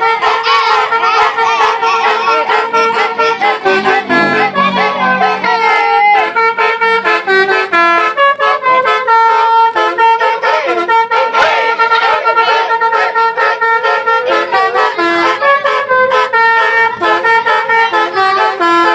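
Telolet musical bus horn, a set of horn trumpets, playing a tune without a break: a held low note sounding under a melody of short stepping notes.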